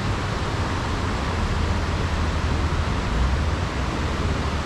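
Steady rush of fast-flowing, storm-swollen water, an even noise with a deep low rumble beneath it.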